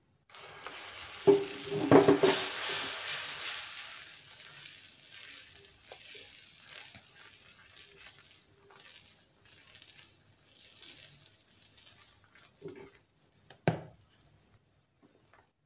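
Dosa batter sizzling as it is poured onto a hot dosa tawa and spread in circles with a ladle. The sizzle is loudest in the first few seconds and then dies down, with a few sharp knocks of the ladle on the pan, twice early on and once loudly near the end.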